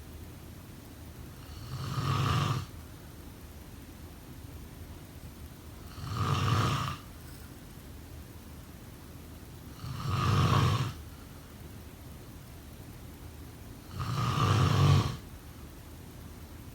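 A sleeper snoring in a slow, even rhythm: four snores about four seconds apart, each lasting about a second.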